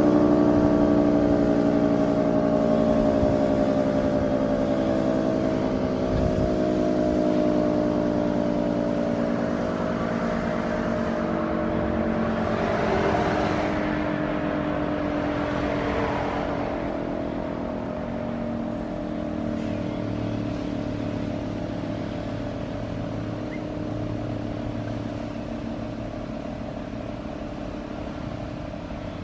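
Federal Signal 2T22 dual-tone mechanical warning siren sounding its two-note chord while winding down, its pitch falling slowly and its sound fading. About halfway through, a rushing noise swells and fades.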